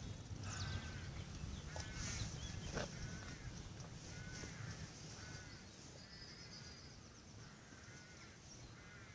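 Birds calling repeatedly, short pitched calls about once a second with higher chirps among them, over a steady low rumble.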